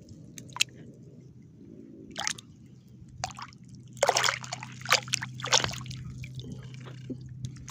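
Shallow water splashing and sloshing as a hand digs into the muddy bottom for clams, in short irregular splashes, loudest between about four and six seconds in.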